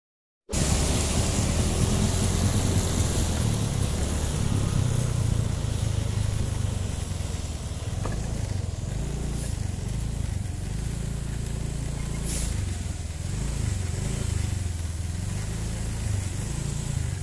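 A motorcycle engine running close by, starting abruptly about half a second in, its pitch rising and falling, with road and wind noise over it.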